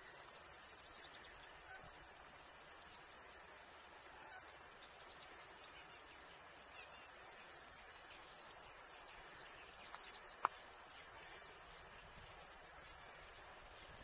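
Steady high-pitched insect chorus, swelling and easing slightly, with one brief sharp sound about ten seconds in.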